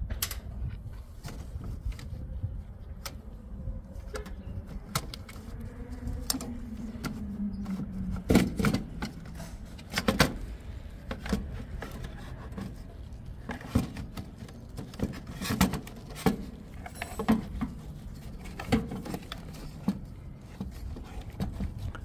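Irregular clicks, taps and rattles of hand tools and screws as the mini split's DC fan motor driver board is unscrewed and unmounted. The clicks come thicker and louder from about a third of the way in.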